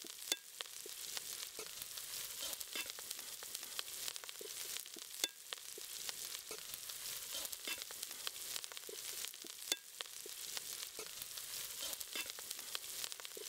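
Sliced onions and green chillies with ginger-garlic paste sizzling in hot oil in a steel pot, with a steady hiss. The metal ladle scrapes and clicks against the pot as it is stirred, with a few louder knocks.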